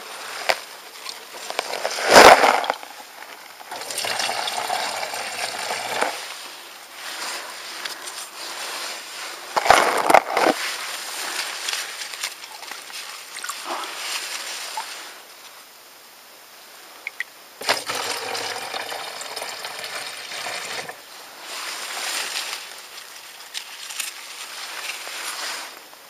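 Water being scooped from a shallow peaty pool with a steel mug and poured into a plastic bottle: sloshing, splashing and pouring. Two louder, sharper strokes come about two and ten seconds in, and there are stretches of pouring.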